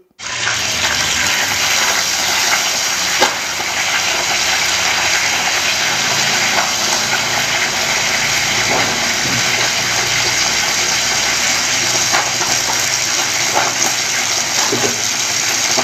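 Handheld electric hair dryer blowing, a loud, steady rush of air that comes on abruptly right at the beginning.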